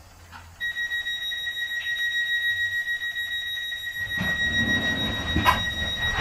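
Door-closing warning tone of a Class 465/9 Networker electric train, a steady high alarm held for about five seconds. In its last couple of seconds the doors close, with rumbling and a sharp knock near the end.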